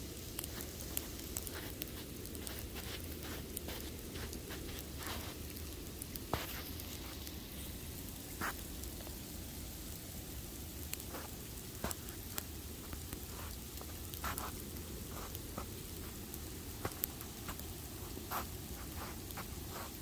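Falling snow ticking and pattering irregularly on the phone and clothing, over a low steady rumble.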